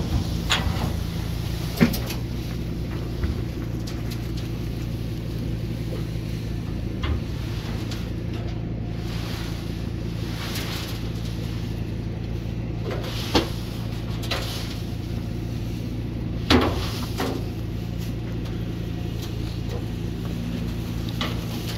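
An engine running steadily throughout, with a few sharp knocks and scrapes of metal against the steel dump trailer as leaves are scooped and pushed out of it. The loudest knocks come about two seconds in and again around 13 and 16 seconds.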